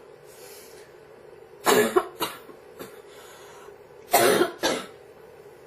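A girl coughing: a soft breath in, then two bouts of coughing about two and a half seconds apart, each a loud cough followed quickly by a second.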